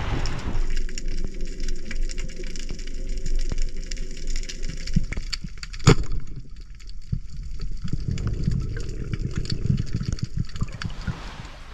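Underwater sound through a submerged camera: muffled low rumbling with many small crackles, and one sharp crack about six seconds in as a speargun fires and its shaft strikes a fish.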